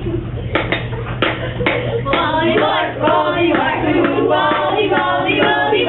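A group of young voices singing together, with a few sharp knocks in the first couple of seconds.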